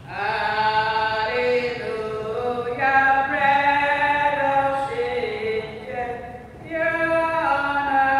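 Voices singing a hymn in held notes that step from one pitch to the next, with a brief dip between phrases about six and a half seconds in.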